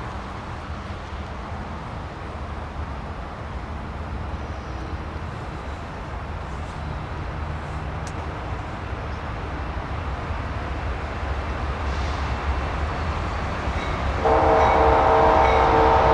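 Diesel freight locomotives approaching with a low rumble that grows gradually louder. About fourteen seconds in, the lead locomotive's air horn sounds: a loud chord of several notes, held to the end.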